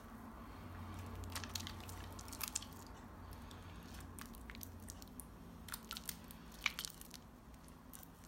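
Faint, scattered wet squishing and crackling of fingers handling gooey, sticky bath confetti in water, with a few sharper clicks near the end.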